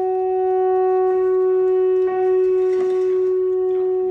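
Alto saxophone holding one long, steady note, played as an intonation check against the piano.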